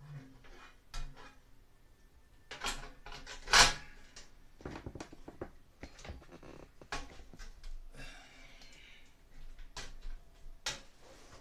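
Plastic grille of a Broan 655 bathroom heater and exhaust fan being handled and fitted by hand: a string of irregular plastic clicks and knocks, the loudest about three and a half seconds in, with a stretch of rustling and scraping around eight seconds in.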